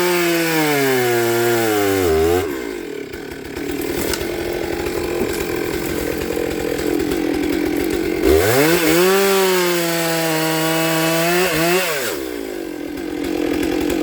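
Chainsaw at full throttle cutting wood, its pitch sagging under load before it drops back to idle about two seconds in. It revs up sharply again about eight seconds in, holds high for a few seconds, then falls back to idle near the end.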